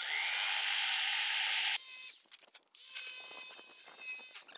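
Jigsaw cutting a notch in a vinyl click-flooring plank. The motor and the blade run steadily, stop for a moment about two seconds in, then start again with a whine.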